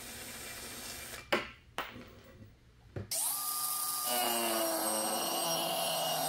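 A cordless drill whirs briefly, followed by a few sharp knocks. About three seconds in, a cordless angle grinder spins up to a steady whine, and about a second later its disc bites into the metal bottom of the frying pan, cutting with a harsh grinding noise.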